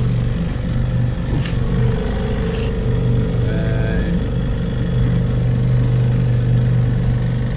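Small 6-horsepower outboard motor running steadily, a constant low drone.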